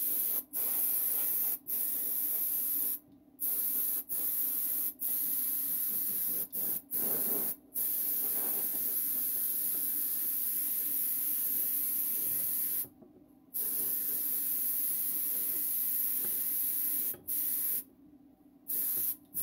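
Airbrush spraying paint, a steady hiss that stops for a moment and starts again a dozen or so times as the trigger is released and pressed.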